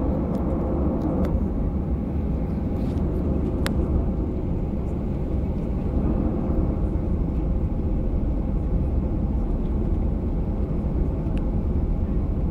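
Jet airliner engines and cabin noise heard inside the cabin during taxi: a steady low rumble.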